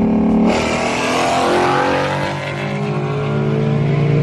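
Ford Mustang V8 going to full throttle in a highway roll race: a sudden surge of engine and exhaust noise about half a second in, then the engine's pitch climbs steadily as it pulls through the gear.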